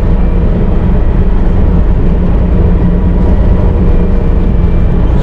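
Bobcat T650 compact track loader's diesel engine running steadily: a loud, unbroken low drone with a few constant whining tones over it.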